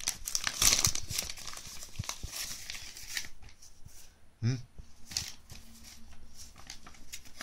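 Paper packaging rustling and crinkling as it is handled, loudest about a second in.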